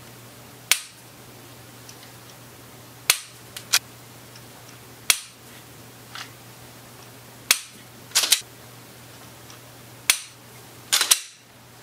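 Unloaded pistol being dry-fired over and over: about a dozen sharp clicks spaced a second or two apart, some in quick pairs and a short cluster near the end, from the trigger snapping on an empty chamber and the action being worked to reset it.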